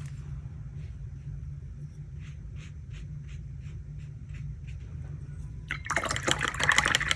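Leftover watercolour paint being poured, a noisy splashing trickle about six seconds in, after faint soft taps about three a second. A steady low hum underlies it all.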